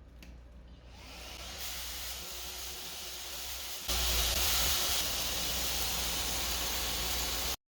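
Philips SpeedPro XC8043 cordless stick vacuum running with a steady airy hiss. It grows louder over the first few seconds, steps up sharply about four seconds in, and cuts off abruptly near the end.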